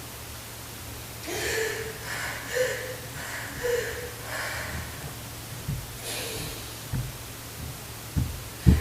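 Breathy, whispered-sounding voice sounds in about five short bursts, over a low steady hum.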